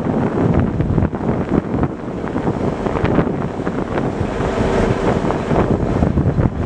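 Gusty wind buffeting the microphone, a loud uneven rumble that swells and drops.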